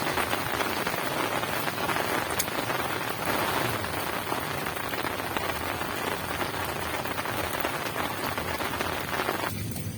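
Heavy rain falling steadily as a dense hiss, stopping abruptly near the end.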